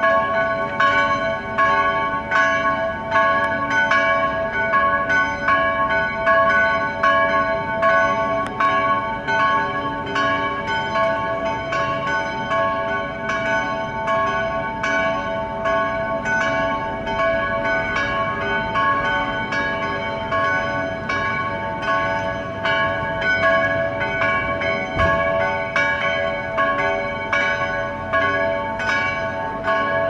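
The bells of St. Clara church ringing together in a full peal. Their strokes overlap in a steady, unbroken stream, each bell ringing on under the next.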